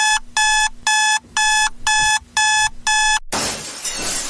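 Electronic alarm clock beeping, seven quick beeps about two a second. A crash like breaking glass cuts it off about three seconds in.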